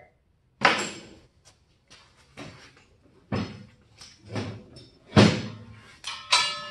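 A string of loud metal clanks and thumps, about a second apart, from a small off-road buggy's steel tube frame being shoved and turned on its wheels. The last clank rings on briefly.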